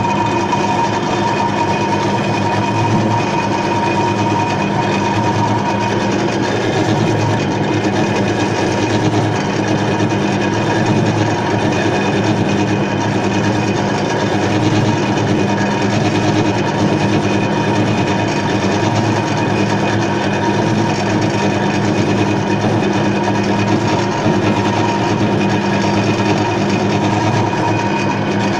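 Homemade lathe running steadily while turning hard steel with a carbide insert: an even motor hum with a steady higher whine over a hiss of machining noise.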